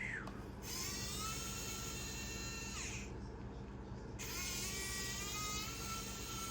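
Small electric precision screwdriver running in two bursts of a few seconds each. Its motor whine rises in pitch as it spins up, holds steady while driving a screw, and drops away as it stops.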